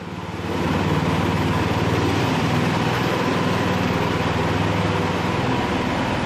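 Small engine of a homemade hot rod kart running steadily as the kart drives, picking up in level in the first half second.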